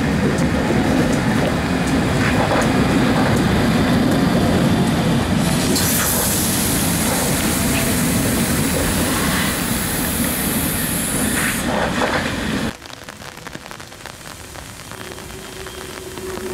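Vintage electric train passing close along a platform: a loud, steady rumble of wheels on rails, with a high hiss joining for several seconds in the middle. The sound drops off abruptly about 13 seconds in to quieter rail-yard noise, and a faint steady hum comes in near the end.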